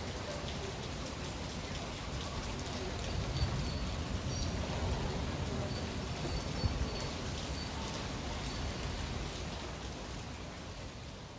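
Steady rain shower, drops pattering densely on surfaces, over a low rumble. There are a few faint high chirps around the middle, and the rain eases slightly near the end.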